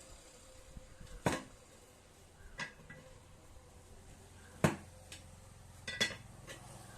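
Metal tools knocking and clanking during tyre removal and fitting: four sharp knocks a second or two apart, the loudest near the middle.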